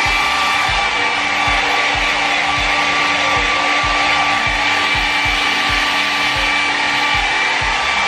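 Kris 600-watt travel hair dryer running steadily: an even rush of air with a thin, constant whine. Background music with a steady beat plays along.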